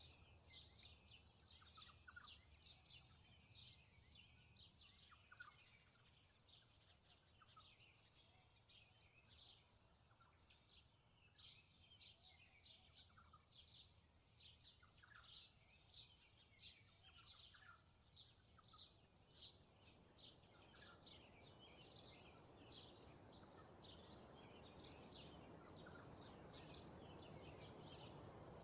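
Faint songbirds chirping many times over in quick, high notes. Wind in grass and trees comes up as a soft rushing about two-thirds of the way in.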